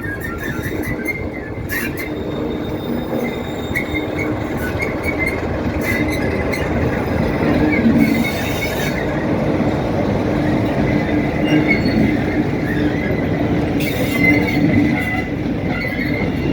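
Class 47 diesel-electric locomotive's Sulzer twelve-cylinder engine running steadily as it shunts, with the rumble of the locomotive moving on the rails and a few clicks. A brief hiss comes about halfway through.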